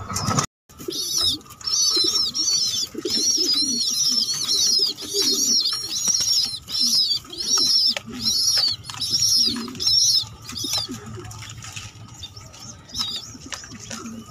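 Racing pigeon squab begging with a run of high-pitched peeping cheeps, about one a second, fainter after about eleven seconds, with lower pigeon sounds underneath.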